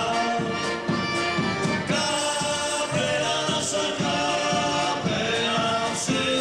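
Two men singing a folk song to band accompaniment, with a steady beat from the drum and double bass under accordions.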